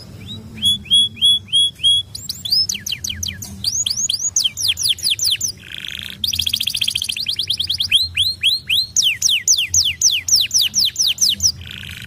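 White domestic canary singing a long, varied song. It opens with a run of short repeated chirps, then rapid down-slurred whistles, a buzzy note and a very fast trill about six seconds in, more quick down-slurred whistles, and a second buzzy note near the end.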